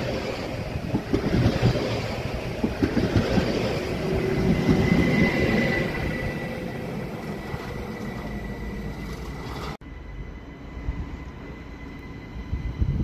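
ÖBB electric multiple-unit trains passing close on the track: wheels rumbling and clattering over the rails, with a steady high whine. After a cut about ten seconds in, a train approaching in the distance, much quieter.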